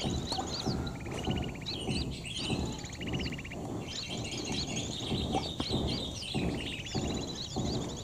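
Sooty-headed bulbul calls from a lure recording and the birds it draws: many quick chirps with a buzzy trill that comes back about every second and a half, over a steady low crackling noise.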